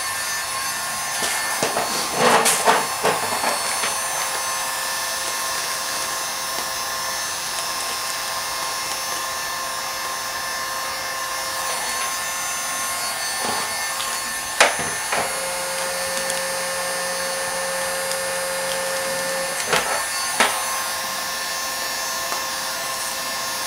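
Electric heat gun running steadily, its fan blowing a constant hiss with a faint whine, heating vinyl wrap film so it can be stretched around curves. A few short clicks from the film being handled.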